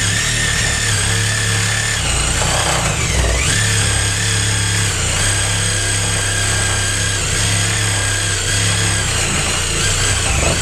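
Cordless power tool motor running continuously at high speed. Its whine dips in pitch for about a second, between two and three seconds in, as it bogs under load, then comes back up.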